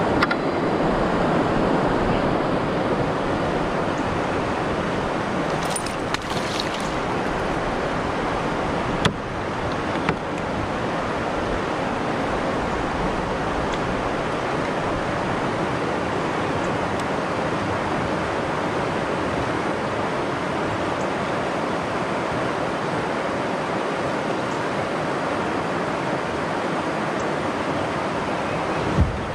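Steady, even rushing noise of the outdoors on the river, with a couple of light clicks about nine and ten seconds in.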